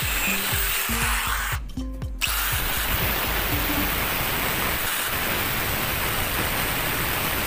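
Angle grinder with an abrasive cutting disc grinding a slot into a steel round bar: a steady grinding noise that breaks off briefly about two seconds in. Background music with a steady beat plays underneath.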